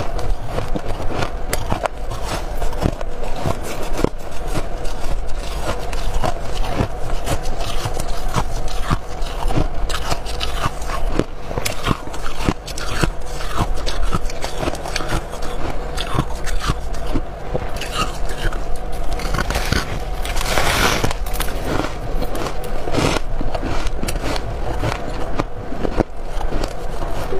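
Biting and chewing freezer frost and hard ice: a dense, irregular run of sharp crunches and crackles, with a longer, louder rasping crunch about two-thirds of the way through, over a steady low hum.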